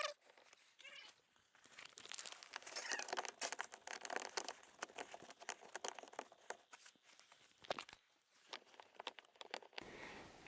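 Faint rustling of work gloves against wiring and trim, with scattered small plastic clicks and knocks as a plastic OBD2 port connector is handled and fitted back into the lower dash panel.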